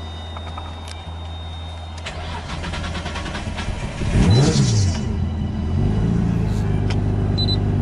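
Nissan Skyline R32 engine being started: it cranks and catches about four seconds in, the pitch dipping and then rising, and it then settles into a steady idle.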